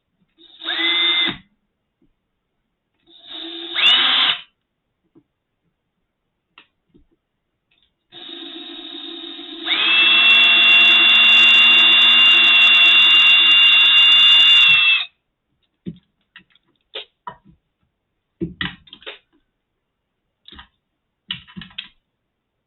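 Small electric drill drilling out plastic plugs: two short bursts that each spin up in pitch, then one longer, loud run of about five seconds with a steady high whine. Scattered light clicks and knocks follow.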